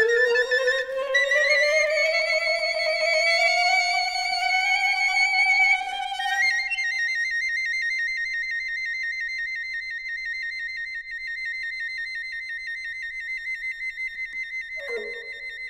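Piccolo and alto saxophone duet in a contemporary piece: the saxophone slides slowly upward beneath the piccolo, then drops out. The piccolo holds one long high note with a rapid pulsing that grows as it fades, and the saxophone re-enters low near the end.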